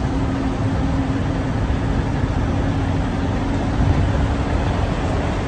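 A diesel engine idling steadily: a constant low rumble with an even hum that does not change.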